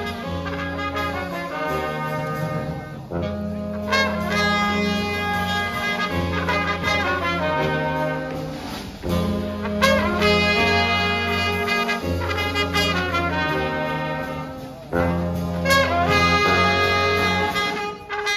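A live brass band of trumpets, trombone and saxophones playing a tune, with held notes over a low bass line in phrases of about six seconds, each ending in a brief dip.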